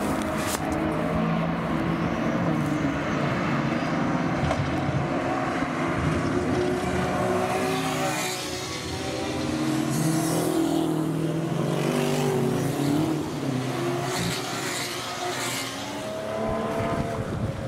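Endurance race car engines running at speed, cars passing one after another, the sound dipping briefly about halfway through and again near the end.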